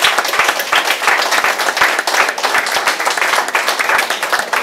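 Audience applauding: many people clapping in a room, steady and dense.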